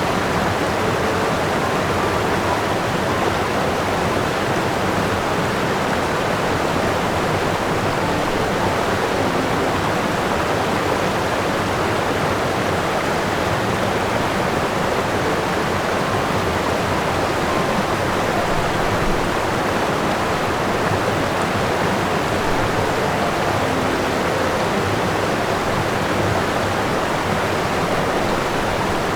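Steady, even rushing noise with no change in level and no distinct calls or knocks.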